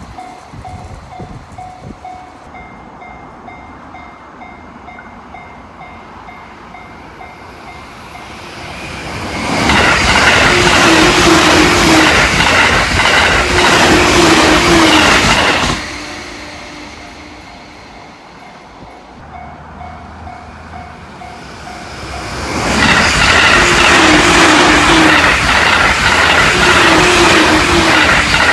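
Level-crossing warning bell dinging in a steady rapid beat, then a train passing at high speed: a loud rush of wheels on rail and air that builds about nine seconds in and cuts off suddenly. The crossing bell rings again, and a second high-speed train goes by in the last few seconds.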